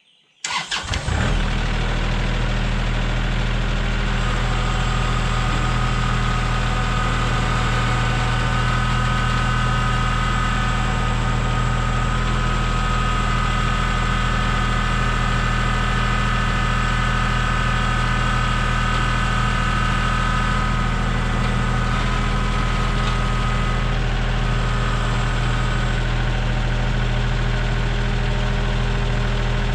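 Portable band sawmill's engine starting about a second in, then running steadily at idle. A steady high whine rides over it for much of the time, then fades out.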